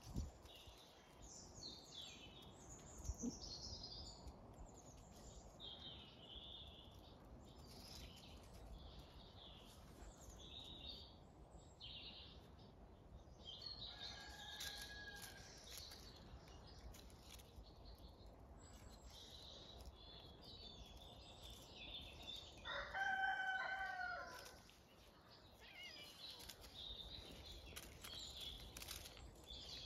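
A rooster crows once, the loudest sound, about two-thirds of the way through, with a fainter crow near the middle. Small birds chirp and sing faintly throughout.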